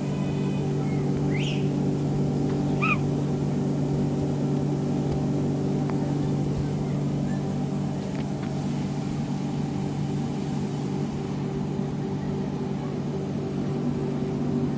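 Steady drone of an electric air blower keeping a bouncy inflatable obstacle course inflated. A child gives a couple of short high calls near the start.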